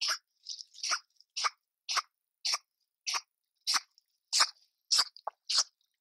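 River otter chewing and crunching food: sharp crunches about two a second, at a steady pace.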